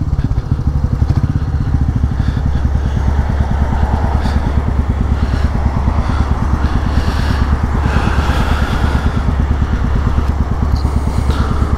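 Royal Enfield Meteor 350's single-cylinder engine idling with an even low beat through an exhaust with the catalytic converter removed, heard through a microphone inside the rider's helmet.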